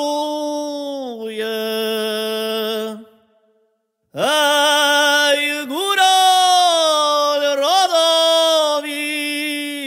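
A man singing a Goral folk song solo and unaccompanied, with long held notes and upward scoops into the phrases. One phrase ends about three seconds in, and after a second of silence a new phrase begins.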